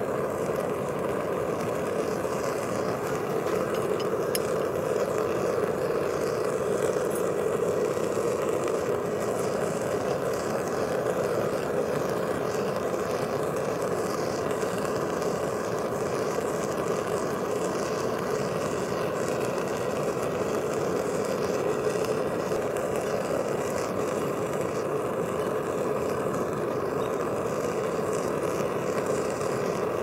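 Gas burner of a metal-melting furnace running flat out with a constant, even rushing noise, firing a crucible of aluminum scrap.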